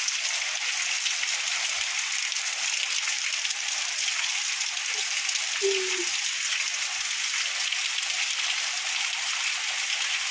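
Heavy monsoon rain pouring steadily onto a flooded courtyard, an even hiss of rain on standing water with no let-up.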